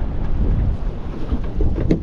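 Wind buffeting the microphone: a heavy, gusting low rumble, with a short knock near the end.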